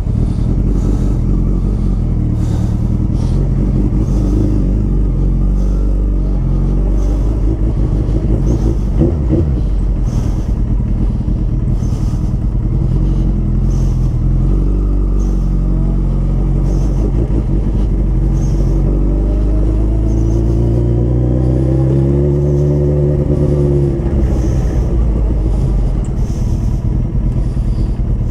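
Sport motorcycle engine running while riding, heard from on the bike; the engine note climbs and falls again about two-thirds of the way through.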